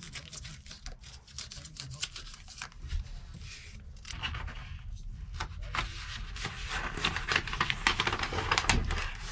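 Utility-knife blade scraping and slicing through a closed-cell foam sound-deadener sheet as it is drawn along the wheel-well sheet metal, with scratchy rustling of the sheet under the hand. It grows louder and busier in the last few seconds, then cuts off suddenly.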